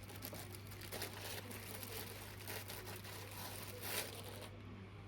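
Plastic packaging crinkling and rustling as small printer accessories are unwrapped and handled, with a sharper rustle about four seconds in, over a steady low hum.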